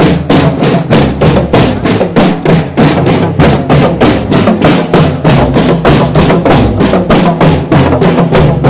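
School marching drum band playing: drums striking a steady, quick beat of about four to five hits a second, with low notes sounding underneath.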